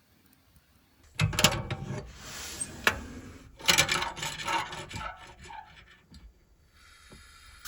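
Irregular rubbing, scraping and clicking close to the microphone, starting about a second in and lasting about four seconds, then dying down; a faint steady hiss comes in near the end.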